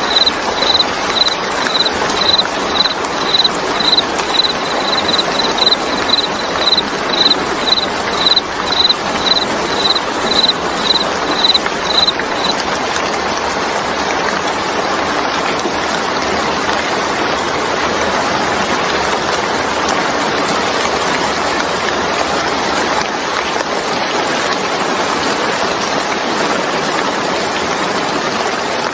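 Steady rain, with a cricket chirping at a high pitch about twice a second that stops about twelve seconds in.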